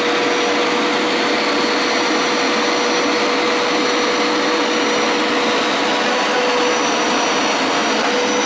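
Hoover Power Scrub Deluxe carpet cleaner running steadily on its wash pass over carpet, its suction motor giving a steady rushing noise with a steady whine.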